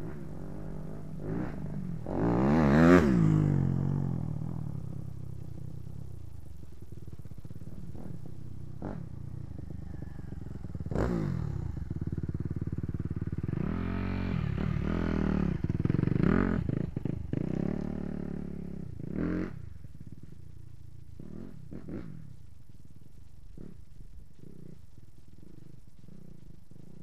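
Suzuki RM-Z250 four-stroke motocross bike being ridden around a dirt track. It comes loudly past about three seconds in with its engine note rising then falling, and revs up and down again through the middle before fading into the distance, with a few sharp clacks.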